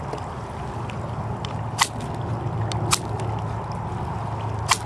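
Three short, sharp scrapes of a knife blade, spaced a second or two apart, over a steady low rumble of wind.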